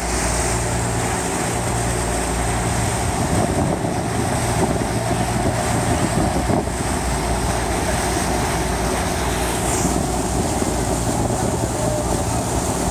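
Steady drone of a river ferry's engine under way, with water rushing along the hull and wind on the microphone.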